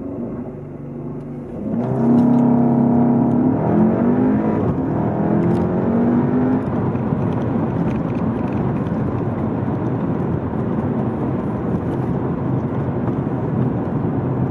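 Skoda Superb 2.0 TSI turbocharged four-cylinder heard from inside the cabin, held at launch-control revs, then launching about two seconds in and pulling hard, its note rising and dropping back at each quick upshift. From about six seconds in, the engine note gives way to steady road and tyre noise as the car runs at speed.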